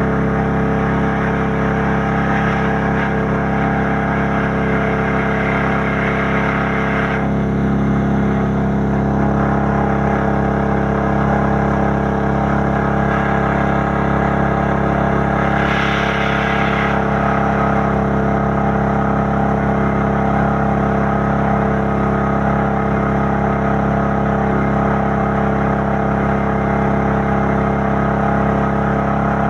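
Small engine-driven water pump running at a steady speed, with an even, unchanging engine note.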